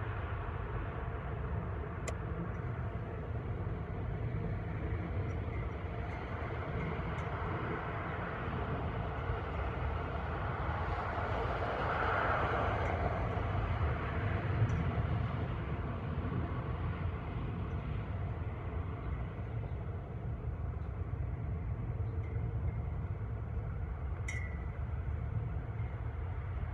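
Outdoor urban ambience: a steady low rumble of traffic, with a vehicle passing that swells up and fades away around the middle. A few brief sharp clicks, the clearest one near the end.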